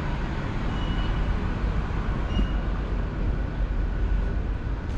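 Street traffic ambience: a steady low rumble of vehicles on the road, with two brief high peeps about one and two and a half seconds in.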